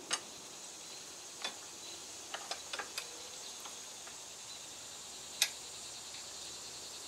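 A handful of light, sharp metal clicks and taps as a U-joint cross and its bearing cap are worked into a driveshaft yoke clamped in a bench vise: a cluster of quick clicks in the middle, and the loudest click about five and a half seconds in.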